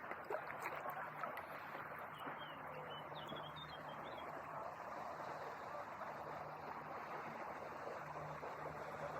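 Steady rush of river water and wind around a kayak, with a few faint, short, high bird chirps about two to three seconds in.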